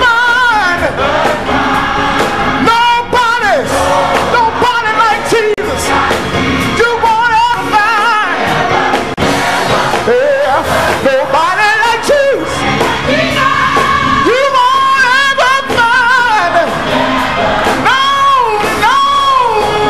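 Gospel choir singing with instrumental accompaniment, voices holding wavering notes, and the congregation clapping along.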